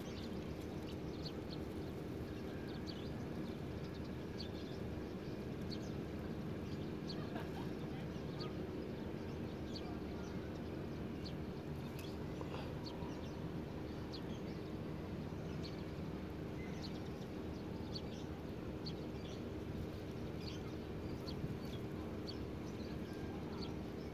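Many short, irregular animal chirps over a steady low hum.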